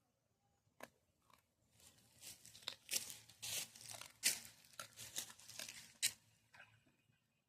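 A dog tearing at and crunching a chicken carcass: irregular rips and crackles, busiest in the middle few seconds.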